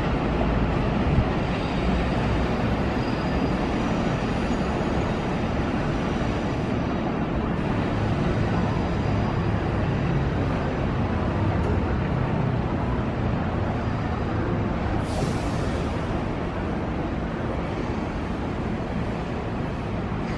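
JR West 205 series 1000-subseries electric train running, a steady rumble of wheels on rail, with faint high-pitched tones in the first few seconds and a brief high hiss about fifteen seconds in.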